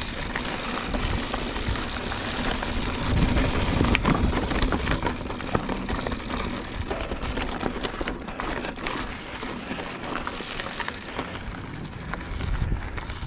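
Motobecane HAL Boost Eagle mountain bike riding over loose rock: tyres crunching on the gravel, with a steady run of clicks and rattles from the bike and a low rumble underneath.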